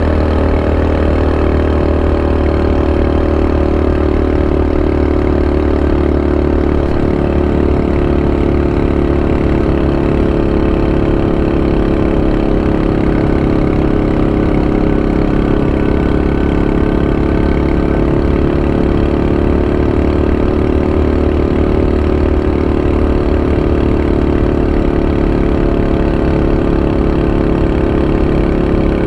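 Honda Super Cub 90's single-cylinder four-stroke engine running steadily at an even pitch.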